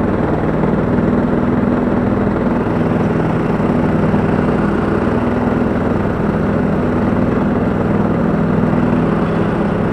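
Petrol engine of a Husqvarna LTH 174 lawn tractor running steadily at working speed while it drives across grass towing a flail mower, with an even drone and no change in pitch.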